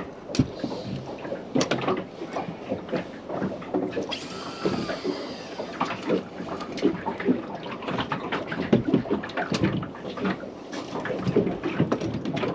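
Water lapping and slapping against the hull of a small anchored fishing boat, with irregular knocks and clatter throughout. A faint high squeak comes about four seconds in and lasts a couple of seconds.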